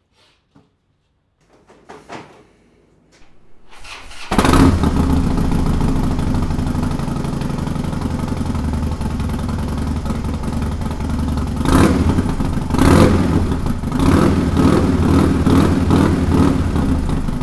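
Harley-Davidson Dyna's air-cooled V-twin, breathing through Vance & Hines Straightshot slip-on mufflers fitted with quiet baffles. After a few faint clicks, the engine starts about four seconds in and settles into a lumpy idle, with a couple of throttle blips near the end. The baffles have taken out the higher notes of the exhaust.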